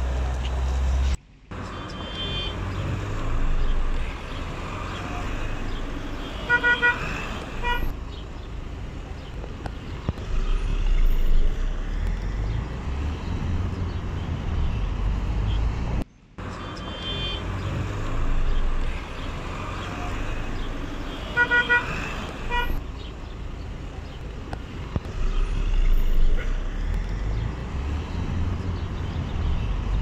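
Town street traffic: vehicle engines and road noise run throughout. A car horn gives a few quick short toots about seven seconds in, and again about twenty-two seconds in.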